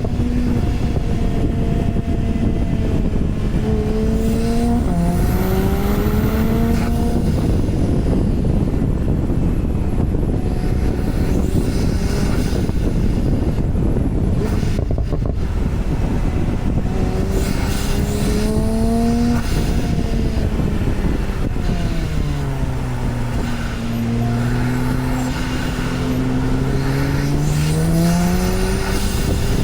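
Porsche 991 Turbo's twin-turbocharged flat-six pulling on the road. Its note climbs with revs a few seconds in and again past the middle, drops away, then climbs once more near the end, over steady tyre and wind noise.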